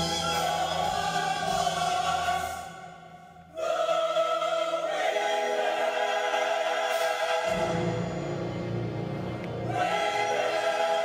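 Symphony orchestra and large choir singing and playing held chords. The sound falls away briefly about three seconds in, then the full ensemble comes back in, with deep bass joining near the middle.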